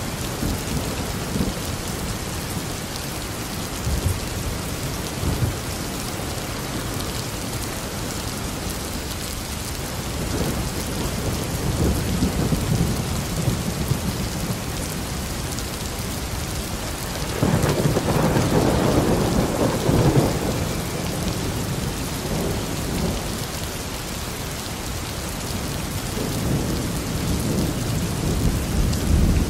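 Steady heavy rain with rolling thunder rumbling underneath. The rumble swells several times; the strongest roll comes about two-thirds of the way through, and another builds near the end.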